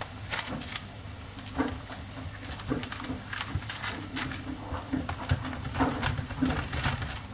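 Hands pressing and patting a crumbly cheese-and-egg dough flat on a parchment-lined baking tray: irregular soft pats with the baking paper rustling.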